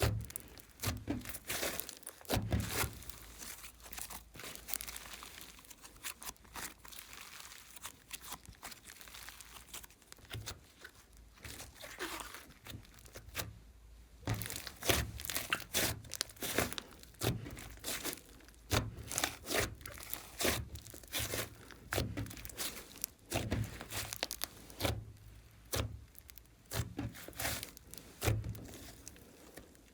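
Glossy slime being squished and kneaded by hand, giving irregular crackling clicks and pops with soft low thuds.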